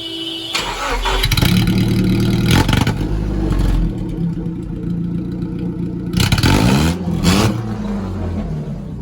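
Datsun pickup engine starting about half a second in and running through a newly fitted exhaust pipe. It is revved up and back down several times, with a clear pair of revs near the two-thirds mark.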